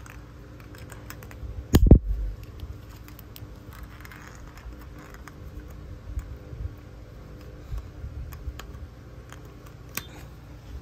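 Small clicks and taps of carbon brushes and their springs being pressed into the brush holder of a Nikko 24 V 7.5 kW starter motor, with one loud knock about two seconds in. A steady low hum runs underneath.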